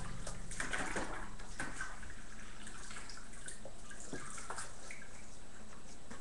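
Bearded Collie puppies moving about on a hard floor: scattered light clicks and taps, irregular and fairly faint.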